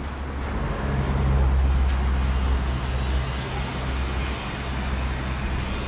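A motor vehicle passing close by on the road: a low engine hum with tyre and road noise that swells about a second in and then slowly fades.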